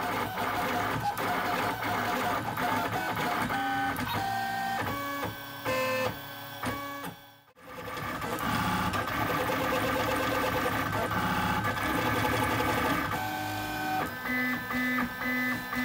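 Lulzbot AO-101 3D printer's stepper motors whining as the print head moves while printing: runs of short steady tones that jump to a new pitch with each move. The sound breaks off briefly around the middle.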